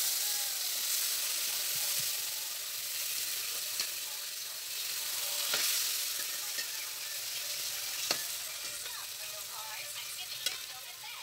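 Marinated pork pieces sizzling as they are sautéed in a hot wok, the sizzle slowly fading. A few sharp clicks come as a metal spatula stirs them against the wok.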